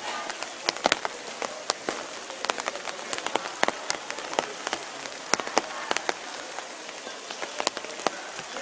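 Rain falling on a surface: many irregular sharp taps over a steady hiss.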